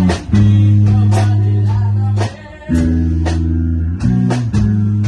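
A band playing: guitar over loud held bass notes, with a regular drum beat. The bass drops out briefly about two seconds in, then comes back.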